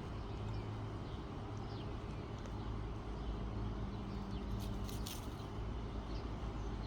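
Outdoor background: a steady low hum with a few faint bird chirps, and a brief rustle about five seconds in.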